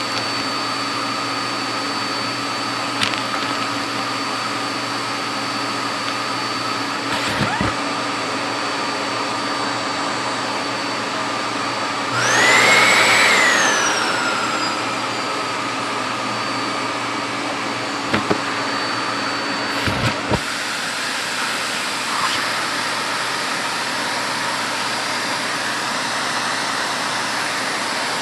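Hitachi CV-KS8 vacuum cleaner running steadily through its hose, with a few sharp clicks as small objects are sucked through. About twelve seconds in, the motor note jumps higher and louder for a couple of seconds, then glides back down: the sign of an object briefly blocking the hose.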